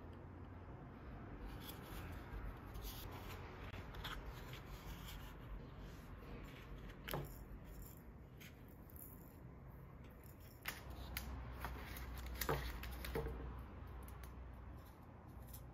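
Faint rustling and scraping of moulded paper-pulp egg cartons being handled and pried open, with a few sharp light knocks as white ceramic egg planters are lifted out and set down on a wooden table.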